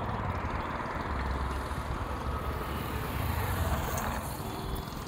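Steady road-traffic noise, a continuous low rumble with an even hiss above it.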